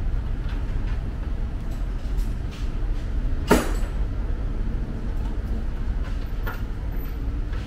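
Hands working at a car's rear license plate: one sharp click about three and a half seconds in and a few faint clicks later, over a steady low rumble.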